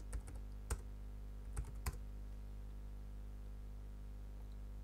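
Several keystrokes on a computer keyboard in the first two seconds, typing a short command. After that there is only a steady low electrical hum.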